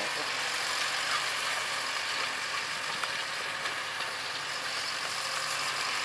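Zetor 9641 tractor pulling a disc harrow across a field, its engine running steadily under an even hiss.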